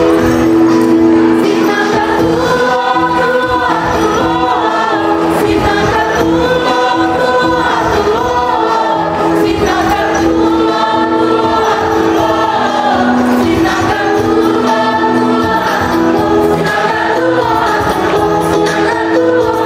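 Student choir singing together over instrumental accompaniment, with a steady held note running underneath the voices.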